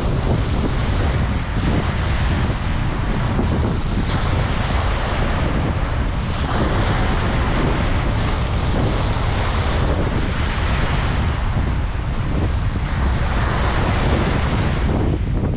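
Ocean waves washing on a beach, a steady surf rush that swells and eases, with wind buffeting the microphone as a low rumble.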